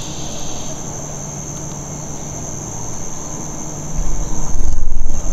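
Steady, high-pitched insect chorus, with a heavy low rumble that swells loud about four seconds in.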